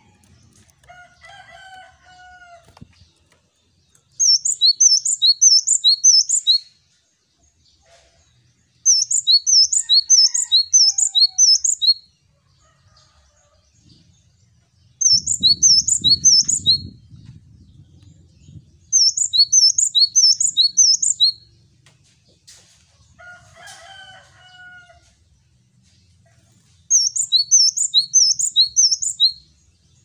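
Male cinereous tit singing its 'wucit wucit' song: five bouts, each a quick run of about four high two-note phrases lasting a couple of seconds, separated by pauses of a few seconds. Fainter, lower calls from another bird come in twice.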